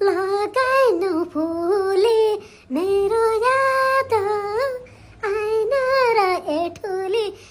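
A child singing unaccompanied in a high voice, in sung phrases broken by two short pauses, the longer one a little after halfway.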